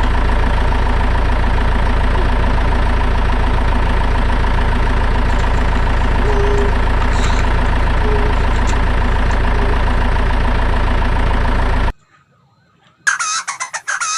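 A toy vehicle's electronic engine sound plays as a steady idling drone and cuts off abruptly about twelve seconds in. About a second later a short warbling siren sound starts.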